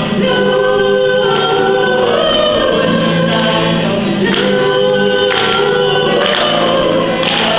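Several young women singing a song together, accompanied by a strummed acoustic guitar.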